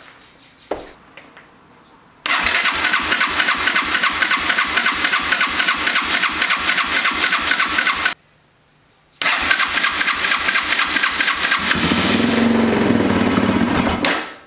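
Yamaha XT225's electric starter cranking its single-cylinder four-stroke engine in two long tries, about six seconds and then about five, with an even chug of roughly five compression beats a second; the engine does not catch.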